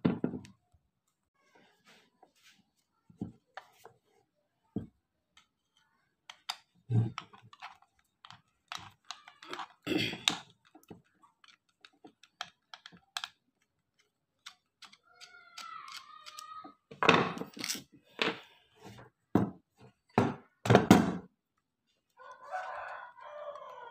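Irregular knocks and clicks of hard plastic and metal as an electric wood trimmer router's housing is handled and its end cap worked open for repair, with a louder run of knocks about three quarters through.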